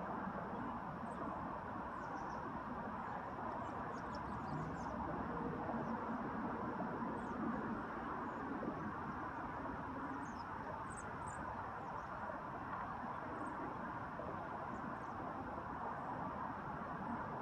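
Steady outdoor background noise with a few short, faint high chirps scattered through it, a cluster about four seconds in and another around ten to eleven seconds.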